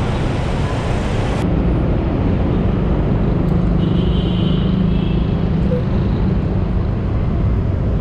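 City street traffic: cars and motorcycles running close by, with a steady engine drone through the middle.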